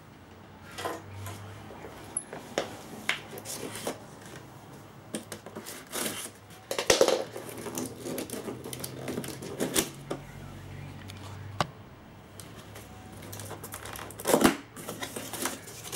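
Cardboard box being opened by hand: irregular taps, clicks and scraping rustles of the cardboard lid and flaps, with the loudest scrapes about seven seconds in and again near the end.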